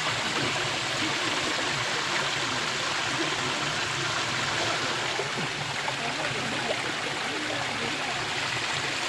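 Small mountain stream, partly iced over, running over granite rocks: a steady rush of flowing water.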